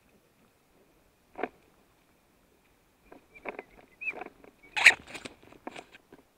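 Footsteps crunching on a gravel riverbed: a single step about a second and a half in, then a quick irregular run of steps, the loudest near the end. A faint steady high-pitched hum sits underneath.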